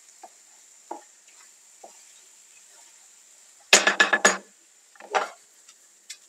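Wooden spatula stirring and scraping diced zucchini and tomatoes in a nonstick frying pan, with a faint sizzle and a few light clicks, then a quick run of about four loud knocks of the spatula against the pan about four seconds in.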